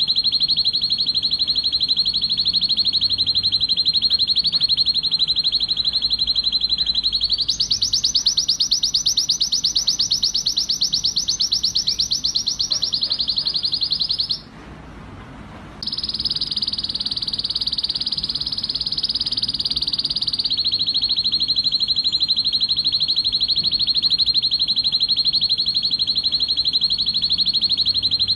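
Male red-factor canary singing the excited song of a bird in breeding condition: a long run of fast trills that jumps to a higher trill about a quarter of the way in, breaks off briefly near the middle, then resumes and settles back to the lower trill.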